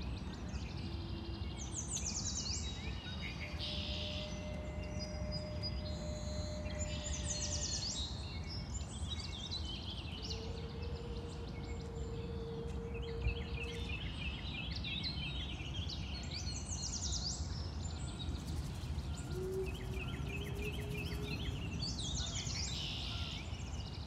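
Birds calling and chirping, with several rapid runs of repeated notes, over steady low background noise.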